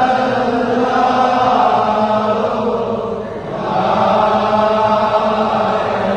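Sufi dhikr chanted by many voices in unison, in long sustained phrases. The chant briefly dips about halfway through, then swells back into the next phrase.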